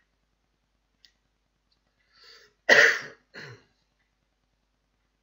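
A man coughing: one sharp, loud cough about two and a half seconds in, then a softer second cough.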